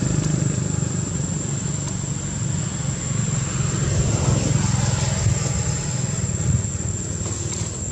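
A motor engine running steadily, a low hum, with a thin, steady high-pitched whine above it.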